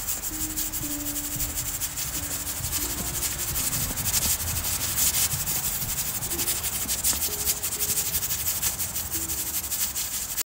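Dense crackling hiss from a steaming pressure cooker set over a wood or charcoal fire. It runs unbroken and cuts off suddenly near the end.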